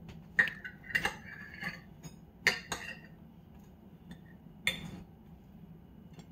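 Ceramic dishes and cutlery clinking as a plate and saucer are handled: about half a dozen sharp clinks with a short ring, most of them in the first three seconds and one more near the five-second mark.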